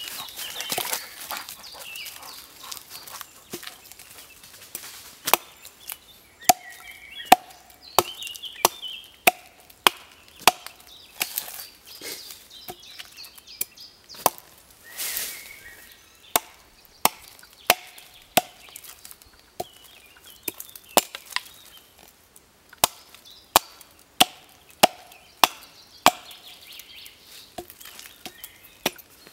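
Small axe chopping into the end of an upright wooden log, shaping it to a point: a series of sharp wooden chops, about one a second, with a couple of pauses of a few seconds.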